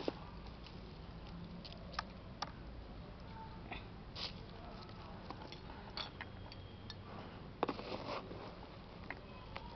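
Potting soil and dry ginger roots crackling and rustling as the soil in a small pot is dug through by hand: scattered small clicks, with a longer rustling scrape about eight seconds in.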